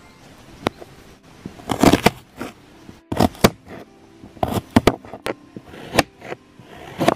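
Kitchen knife slicing through soft food and striking a plastic cutting board: about ten sharp knocks, some with a short rasp of the blade cutting through.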